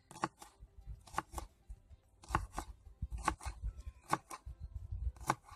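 Knife chopping shallots into small pieces on a board: sharp knocks, mostly in pairs about once a second.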